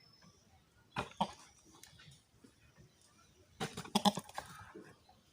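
Goats bleating: short calls about a second in and again near four seconds in.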